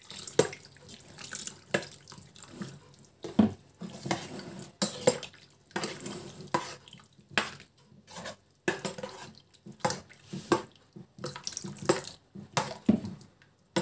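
Boiled water pouring from a plastic jug into an enamel pot of chopped okroshka ingredients, while a spoon stirs the mixture and knocks irregularly against the pot.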